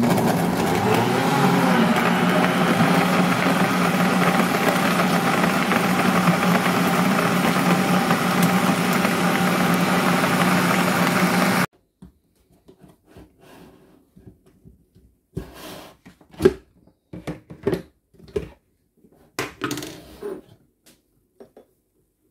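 NutriBullet blender motor running steadily under load as it purees watermelon chunks, with a low hum under a dense whir, then cutting off suddenly about twelve seconds in. After it stops come scattered knocks and clinks as the plastic pitcher and glassware are handled.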